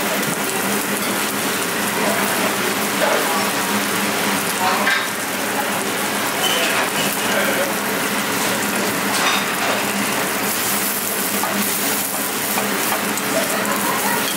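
Duck breast sizzling steadily skin-side down in a hot stainless steel pan over a gas flame, its fat rendering out.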